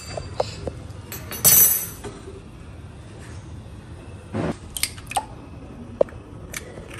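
Kitchen handling sounds: scattered light clinks and knocks of a small glass bowl and a steel fork on a counter, with a louder brief rustling scrape about a second and a half in.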